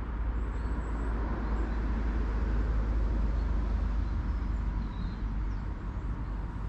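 Steady rumble of road traffic, swelling slightly in the middle as a vehicle passes, over a low outdoor rumble.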